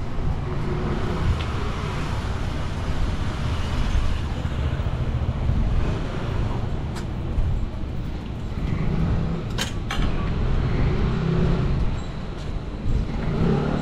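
Street noise with a motor vehicle running close by, a steady low rumble, and a couple of sharp clicks about ten seconds in.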